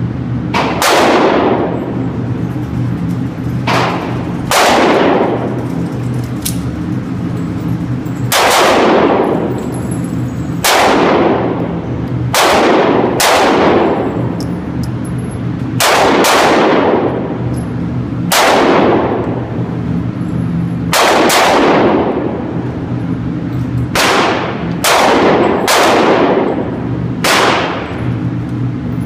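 Pistol shots in an indoor shooting range, each sharp report followed by a long echoing tail, fired one to three seconds apart throughout, over a steady low hum.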